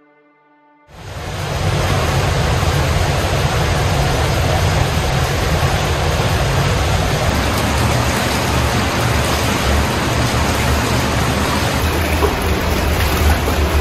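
Loud, steady rush of water with a deep rumble, cutting in suddenly about a second in.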